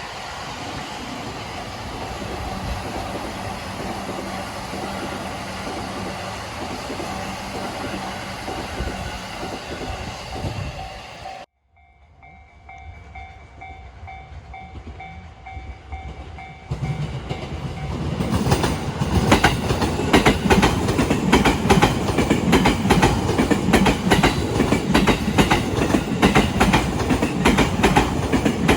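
A freight train passing over rail joints: a fast, regular clickety-clack of wheels on the joints that grows loud from about 17 seconds in and stays loud. Before that a level-crossing warning bell rings in a steady pulsing tone. In the first part a train runs by more steadily, and that sound breaks off suddenly near the middle.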